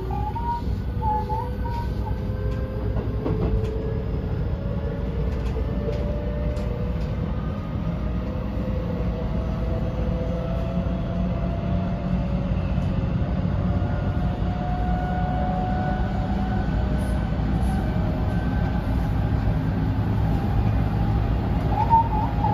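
Running sound inside a JR 223 series 2000 motor car: the Toshiba IGBT VVVF inverter and traction motors whine, several tones rising slowly and steadily in pitch as the train accelerates, over a steady rumble of wheels on rail.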